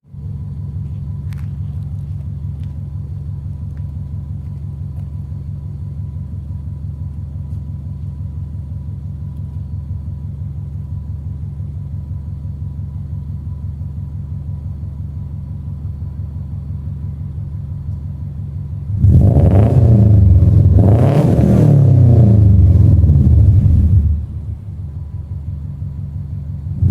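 Subaru Impreza GC8's 2.0-litre EJ20 flat-four, naturally aspirated, with an unequal-length header and a catless 3-inch exhaust, idling with a steady low rumble. About 19 s in it is revved hard, the pitch rising and falling for some five seconds before it settles back to idle, and near the end another rev begins.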